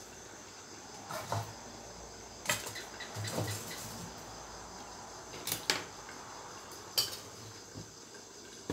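A covered wok of prawns and glass noodles cooking on a gas burner, giving a steady hiss, with a few scattered sharp clicks and knocks.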